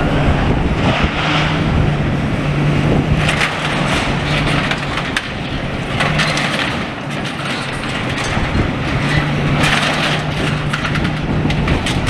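Demolition excavator's diesel engine running with a steady hum while its grab picks through rubble for scrap metal, with bouts of crunching and cracking debris several times, over wind buffeting the microphone.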